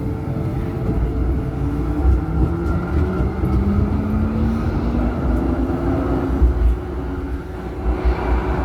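Electric tram running along the line: a steady low rumble of wheels on rails, with traction-motor whines that glide slowly upward in pitch.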